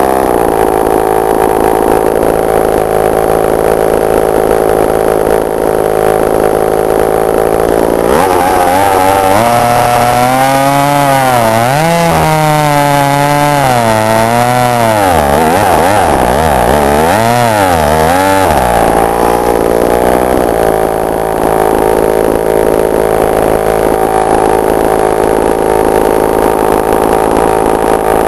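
Sachs Dolmar 120 Super two-stroke chainsaw idling steadily. About eight seconds in, the throttle is worked for about ten seconds, the engine speed rising and falling over and over, then it settles back to a steady idle.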